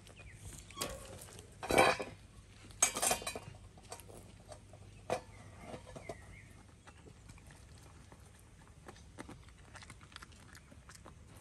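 Metal clatter of a steel dog bowl and its chain: two loud clanks about two and three seconds in, then lighter ticks and clinks as a small dog eats from the bowl.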